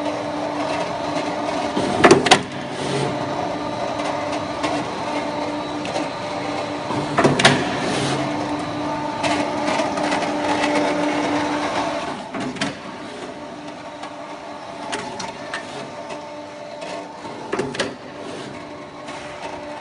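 Steel roll-forming machine running with a steady, multi-toned machine hum. Sharp metallic knocks come about two seconds in, again near seven seconds, twelve seconds and eighteen seconds. The running sound gets quieter about twelve seconds in.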